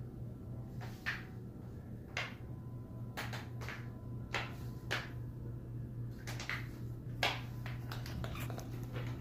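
High-heeled shoes clicking on a hard tiled floor as she walks, roughly one step a second, over a steady low hum.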